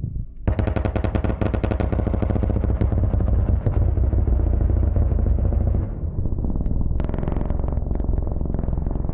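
An A-10's GAU-8 30 mm Gatling cannon firing a long burst: a continuous buzzing roar that starts about half a second in and eases off around six seconds. A spell of sharp crackling follows near the end as rounds strike the ground around the target vehicle.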